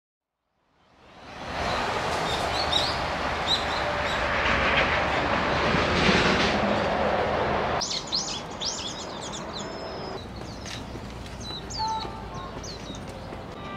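Outdoor ambience: a loud, even rushing noise fades in after about a second, swells and then cuts off abruptly about eight seconds in, with birds chirping through it. After that, many birds keep chirping over a quieter background.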